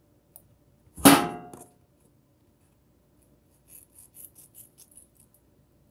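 A single loud clank of kitchenware against a hard surface about a second in, ringing for about half a second. Near the end, a quick run of faint, crisp clicks from work at the kitchen counter while raw chicken tenders are trimmed.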